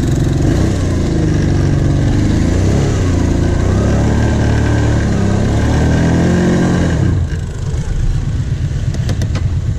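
Kawasaki Brute Force 750 quad's V-twin engine heard from the rider's seat, revving up and down repeatedly as the throttle is worked, then easing off about seven seconds in. A few sharp clicks near the end.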